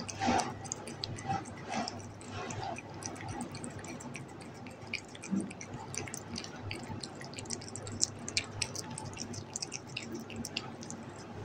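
A cat chewing and licking soft mango chunks: a run of small, wet, irregular clicks and smacks, several a second.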